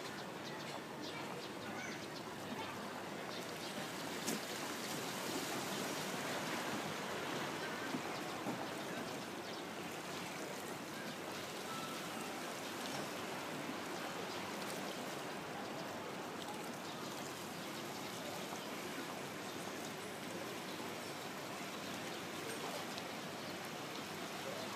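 Small waves lapping at the water's edge, a steady wash of water.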